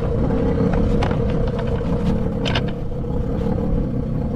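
A small boat's motor idling steadily, a low rumble with a constant hum, with a few light clicks over it.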